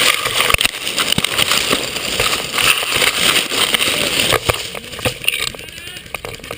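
Airsoft guns firing during a skirmish: many sharp, irregular cracks and pops of shots over a steady rushing noise, easing off near the end.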